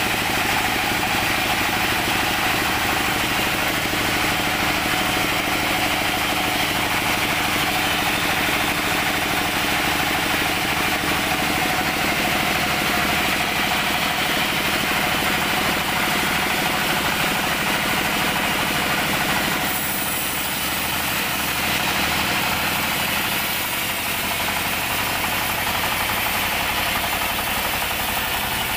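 Band sawmill's engine running steadily at idle, with no cut under way.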